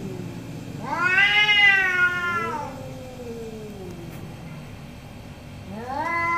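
Domestic cats yowling angrily in a territorial standoff: a long, drawn-out call about a second in that rises and then falls, and another starting near the end.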